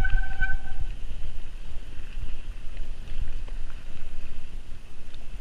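Mountain bike rolling fast down a rough dirt trail: wind buffeting the microphone and a low rumble of the tyres and bike rattling over bumps. A short steady squeal sounds during the first second.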